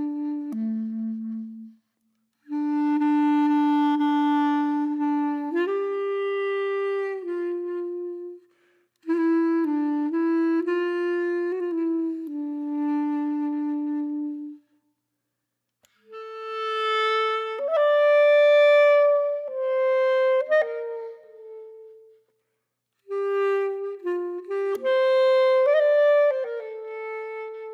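Background music: a slow melody of long held notes, played in phrases with three short silences between them.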